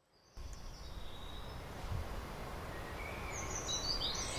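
Outdoor garden ambience: a steady low rumble with songbirds chirping, the chirps coming more often near the end.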